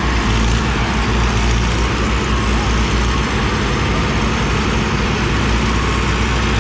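Several diesel tractor engines running together, held steady at raised revs around 2000 RPM.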